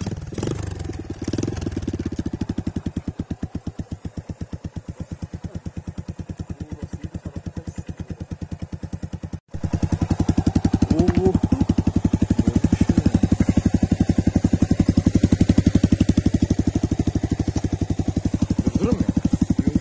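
Motorcycle engine idling with a steady, even beat. It drops out briefly about halfway through and comes back louder.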